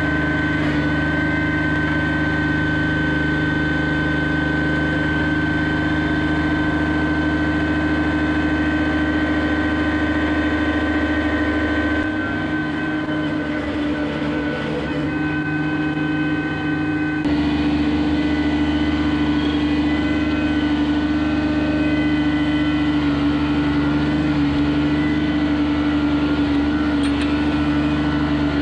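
John Deere 755 compact tractor's three-cylinder diesel engine running steadily under work, a constant engine drone with a held whine above it. The sound shifts abruptly about twelve seconds in and back again about five seconds later.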